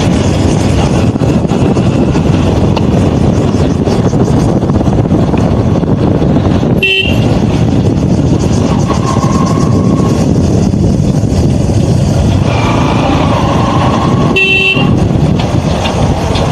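Motorcycle riding along a lane, engine running under a dense rush of wind and road noise; the horn gives two short toots, about seven seconds in and again near the end.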